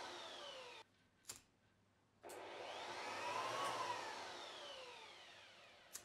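Electric leaf blower on its lowest setting, faint and whirring, its whine falling before it cuts off abruptly under a second in. A sharp click follows, then the blower whir comes back, its whine rising and then falling as it fades out, with another click near the end.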